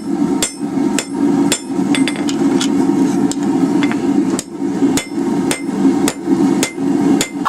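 Hammer striking hot steel on an anvil at about two blows a second, drawing out the split tines of a forged plate, over a steady low hum.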